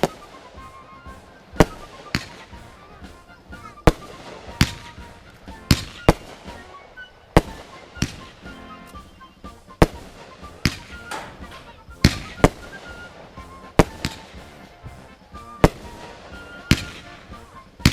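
Fireworks going off: a long run of sharp bangs at irregular intervals, roughly one a second.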